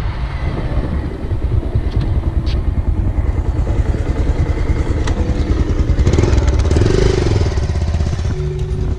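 Bajaj Pulsar 220F motorcycle engine running steadily under way, heard from the rider's seat, getting a little louder about six seconds in.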